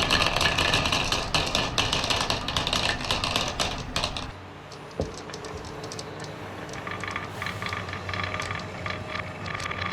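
Marbles rolling and clattering along a wooden marble run: a dense rattle of rapid clicks for about four seconds, a single knock about a second later, then rapid clicking again from about seven seconds in.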